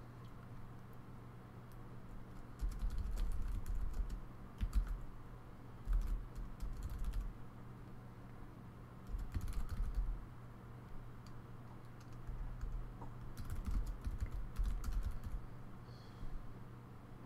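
Computer keyboard typing in four short bursts of rapid key clicks, each with dull thuds, over a low steady hum.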